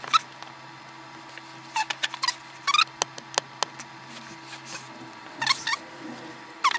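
Short high-pitched squeaks, each falling in pitch, singly and in quick runs of two or three, over a faint steady hum; a few sharp clicks about halfway through.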